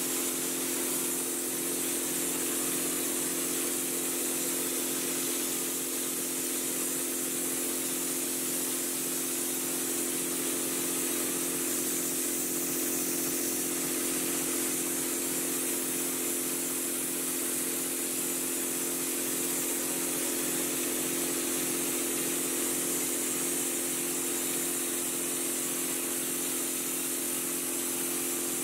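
Air compressor running steadily, with a constant hiss of compressed air for a drywall texture hopper gun.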